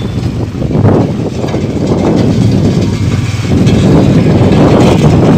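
Motorcycle engine running while riding, with wind buffeting the microphone.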